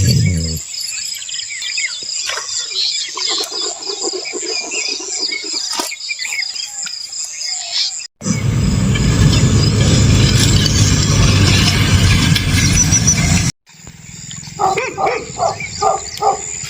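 Spliced outdoor night ambience: insects chirping with short bird-like calls, then a loud steady rush of noise, then an animal call repeated rapidly, about four times a second.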